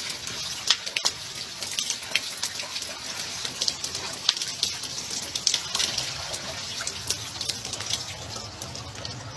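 Dirty waste water pouring out of a drain pipe and splashing onto the ground below, a steady splashing with many sharp little spatters.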